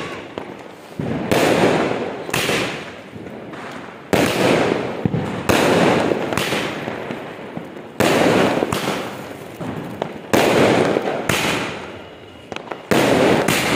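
Aerial fireworks (sky rockets) bursting overhead: a run of about ten sharp bangs, roughly one a second, each trailing off in a long echo.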